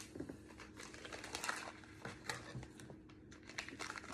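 Faint crinkling of a plastic food package being handled, with scattered light clicks and taps.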